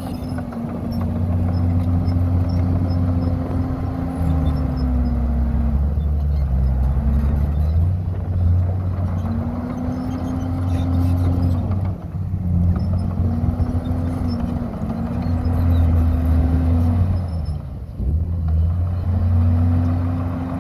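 Komatsu D51PX bulldozer's diesel engine running, its note sagging and picking back up about four times as the load on it changes.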